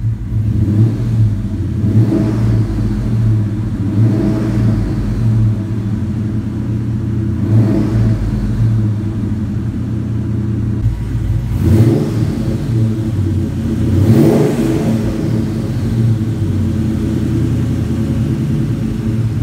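Ford Mustang GT's 4.6 L two-valve V8 with long tube headers idling, blipped several times with light revs that rise and fall quickly in pitch. The revs bring a faint turbo-like sound from the headers.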